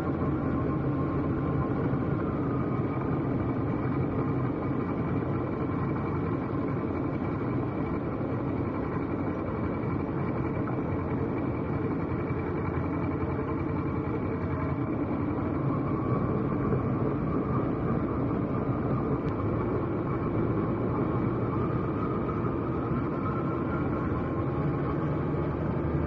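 Motorcycle engine running steadily while riding on a rough road.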